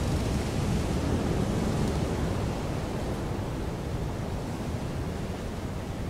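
Wind blowing steadily, a low rushing noise that eases slightly after about two and a half seconds.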